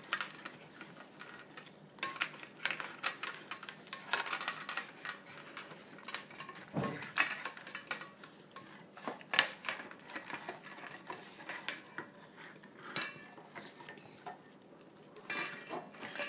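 Two dogs eating from stainless steel bowls, the metal bowls clinking and rattling irregularly as the dogs push their muzzles into them.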